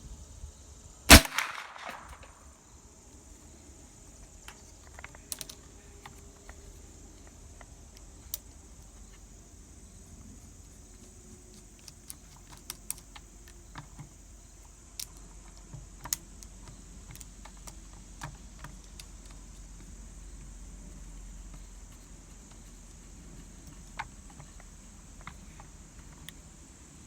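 One loud, sharp crack about a second in, with a short ringing tail, followed by scattered faint clicks and taps.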